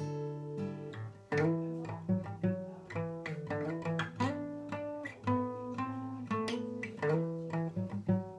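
Solo acoustic guitar playing an instrumental passage: a chord rings for about a second, then a run of separately picked notes and chords follows.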